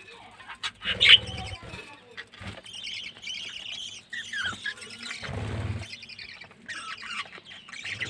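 Budgerigars chirping and chattering in scattered short high calls, with a few short falling notes near the middle. Two brief low rumbles come about a second in and again about five seconds in.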